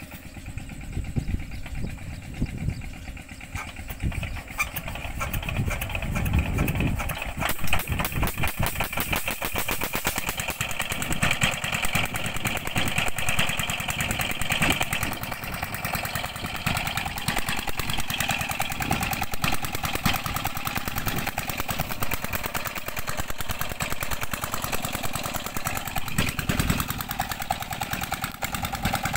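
12 hp Petter single-cylinder diesel engine starting. For the first six or seven seconds it gives slow, uneven thumps, then it picks up and runs at a steady fast beat.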